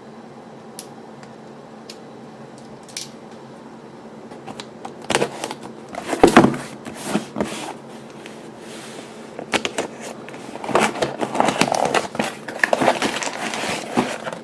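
Cardboard phone box being opened and handled: a few faint clicks at first, then from about five seconds in, irregular scraping, sliding and rustling with sharp clicks, loudest near the end.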